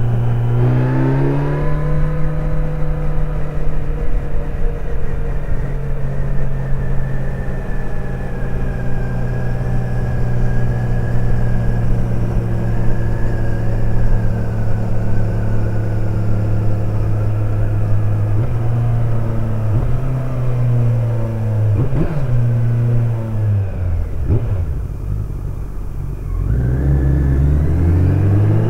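Kawasaki Z900 motorcycle's inline-four engine under way. It climbs in pitch at first, runs at a steady cruise for most of the time, then drops in pitch as it slows, with two brief sharp sounds. Near the end it rises again under acceleration.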